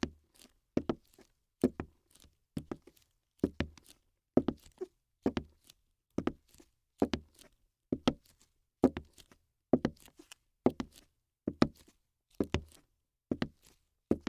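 A steady run of sharp knocks, most coming as a quick double strike, a little more than once a second.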